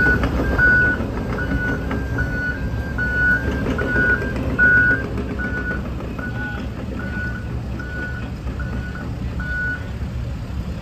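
Diesel engines of a John Deere 75 P-Tier mid-size excavator and a backhoe loader running under load, with a reversing alarm beeping about twice a second until near the end.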